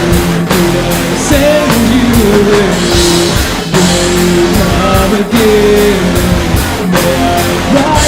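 Rock song in an instrumental passage: a guitar melody with bending notes over a drum kit.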